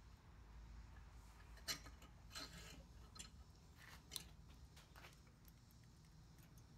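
Near silence, broken by a few faint clicks and light rubbing of small metal parts as a carburetor's throttle linkage is fitted by hand.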